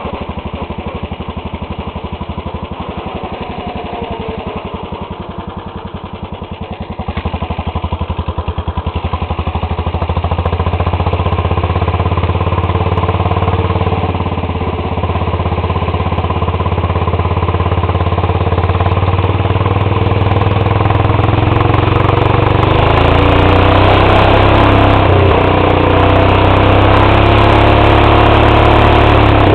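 Lawn tractor engine running hard as the tractor drives down a paved street, growing louder about a third of the way in and again later on.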